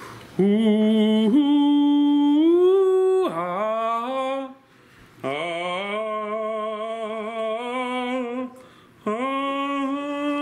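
A man humming a wordless tune in long held notes with some wavering and upward glides, in about four phrases with short breaks between them.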